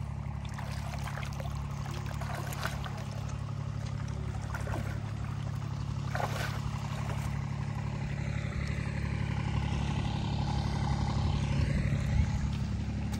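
A motor running steadily in the background, with a few small splashes of water.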